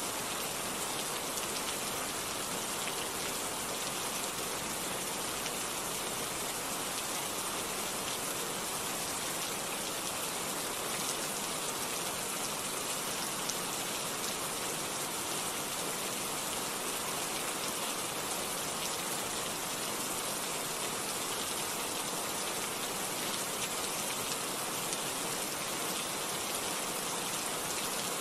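Steady rain falling: an even hiss with scattered individual drop ticks.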